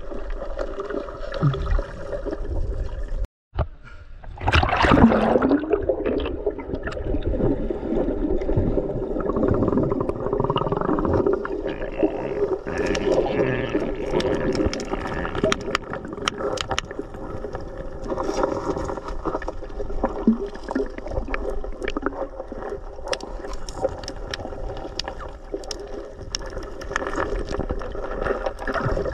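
River water heard through a submerged camera: a muffled rushing and gurgling with a steady low hum and scattered small clicks. The sound cuts out briefly about three seconds in, then surges louder for a moment.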